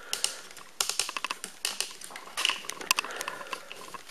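Handling noise: irregular quick clicks, taps and light rustles of things being moved about close to the microphone.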